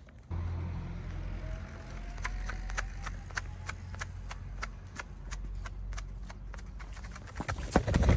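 Footsteps on a walk: sharp regular taps, about three a second, over a low steady rumble that starts just after the opening. The steps grow louder and busier near the end.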